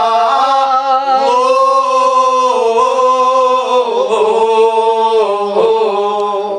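A man's voice chanting a Muharram elegy (mazmoon) in long, held notes that bend and waver, phrase running into phrase.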